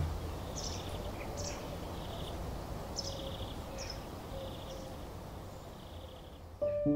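Outdoor ambience: small birds give short high chirps every second or so, with short buzzy insect trills, over a low steady rumble. Plucked, harp-like music notes come in near the end.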